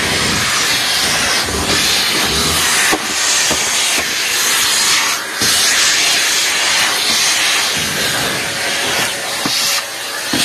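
Vacuum cleaner running, its hose nozzle sucking debris off a pen floor: a loud, steady hiss that dips briefly about halfway through and again near the end, with a few short clicks.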